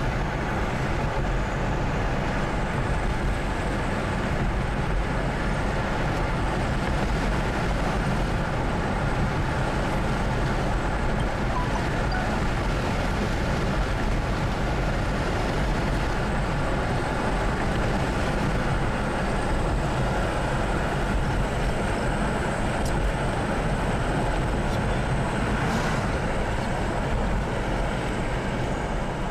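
Steady road noise from inside a moving car, mostly low rumble from the tyres and engine at cruising speed.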